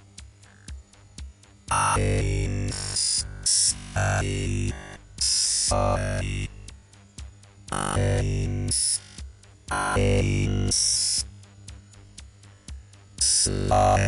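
Synthesized electronic sci-fi sound effect: a quiet, regular ticking pulse broken by loud electronic bursts lasting about a second each, starting about two seconds in and recurring every couple of seconds.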